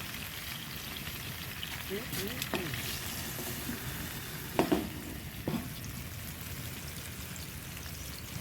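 Chicken frying in oil in a pan on a hot-tent wood stove: a steady sizzle, with two sharp knocks a little past the middle.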